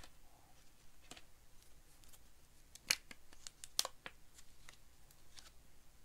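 Baseball trading cards being flipped through by hand, card sliding and snapping against card: a run of soft scattered clicks, with two sharper snaps about three and four seconds in.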